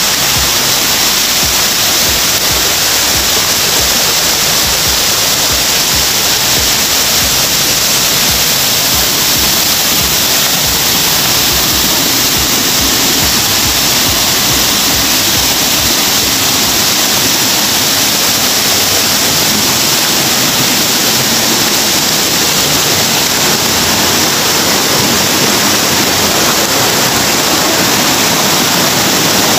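Loud, steady rush of a mountain stream cascading over boulders.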